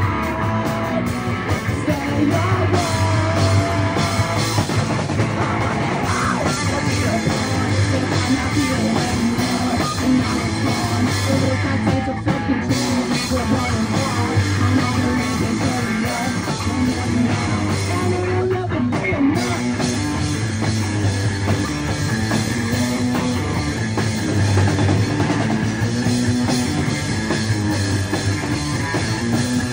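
Live rock band playing: electric guitar, bass and drum kit, with the drummer singing.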